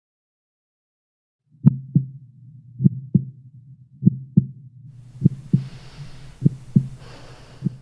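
Heartbeat sound effect: a slow, steady lub-dub, a little under one double beat a second, starting after a second and a half of silence, over a low hum. Two soft breath-like hisses come in the second half.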